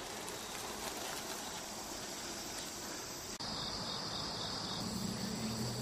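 Steady outdoor background with insects chirring. About three and a half seconds in the sound cuts abruptly, and a steadier high insect drone follows.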